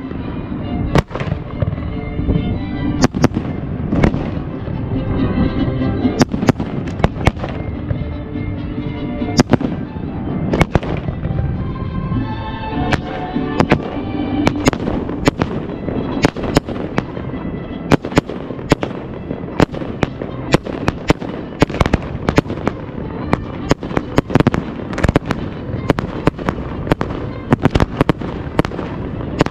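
Display fireworks bursting in rapid succession: dozens of sharp reports, packed more tightly in the second half, over music playing underneath.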